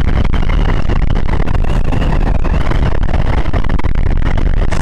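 Wind rumbling steadily over the microphone of a Yamaha FZ-S V3 motorcycle riding through traffic, with the engine running underneath and a faint steady high whine.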